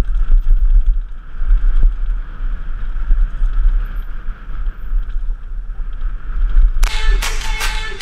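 Heavy wind rumble on a helmet-mounted camera's microphone, mixed with the rolling and rattle of a Giant Glory downhill mountain bike on a rocky dirt trail. Music starts near the end.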